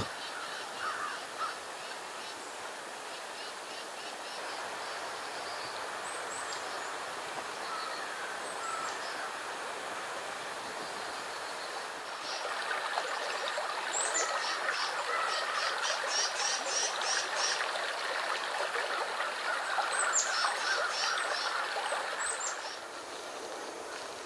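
Birds calling over a steady outdoor hiss. About halfway through comes a louder run of quick, high, chattering bird notes that stops shortly before the end.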